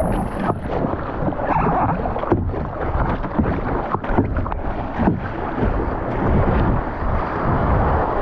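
Surf washing around a kayak, with water splashing and slapping against the hull in short irregular bursts, and wind buffeting the microphone.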